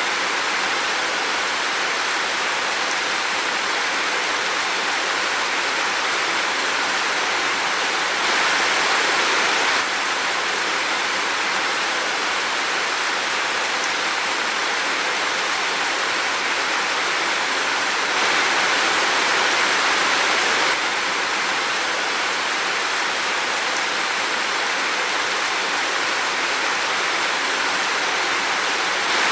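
Heavy rain falling steadily as a dense, even hiss, swelling slightly louder for a couple of seconds twice.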